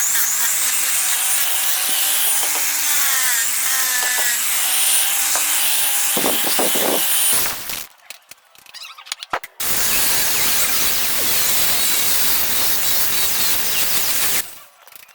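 A handheld electric power tool working wood. A motor hum with a slightly wavering pitch runs for the first half, then stops for a couple of seconds with a few knocks. After that comes a steady, even grinding hiss that stops shortly before the end.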